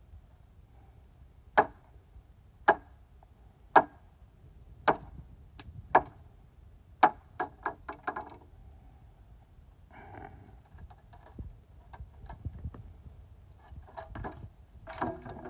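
Six sharp knocks on the wooden framing of a chicken coop being taken apart, about a second apart, followed by a few lighter, quicker taps.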